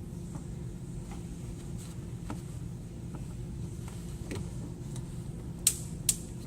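Light handling clicks as a rubber oil-separator hose is worked onto its fitting on the intake manifold, ending in two sharp clicks about half a second apart near the end, over a steady low hum.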